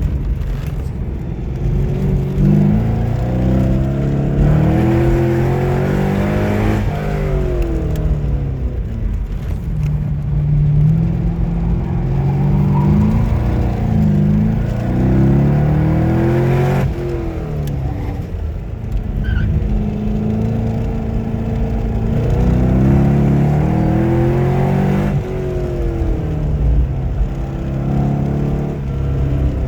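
Corvette Z06 V8 engine accelerating hard. Its pitch climbs in steps through the gears, then falls away as the car slows, a cycle that repeats about three times.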